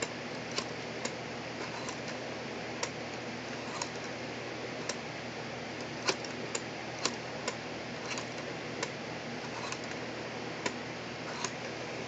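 Steady hiss with light, sharp clicks scattered irregularly, roughly one a second.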